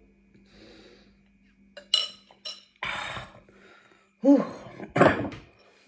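A few light clicks of cutlery against a plate, then a long breath out and a voiced 'whew' with a puff of air, from someone stuffed full after a meal.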